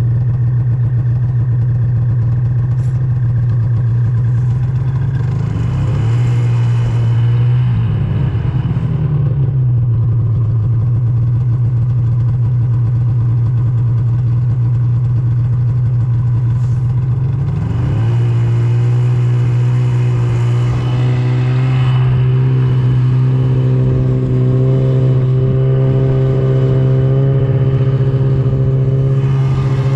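Mountain snowmobile engine, a 2017 Arctic Cat M8 two-stroke, running steadily while towing snow tubes. Its pitch rises and falls a few seconds in, then climbs again about midway and holds at the higher speed.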